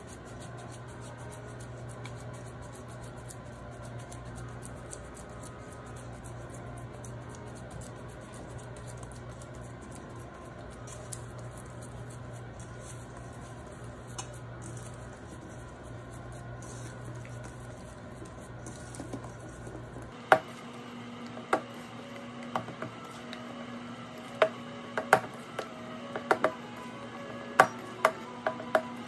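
Quiet background music; from about two-thirds of the way in, a run of sharp taps and clicks as hands fold and work wet sourdough dough against a stainless steel mixing bowl.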